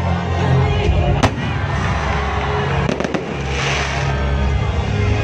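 Aerial fireworks going off over music with a steady bass. There is one sharp bang about a second in, a quick cluster of bangs near three seconds, then about a second of hiss.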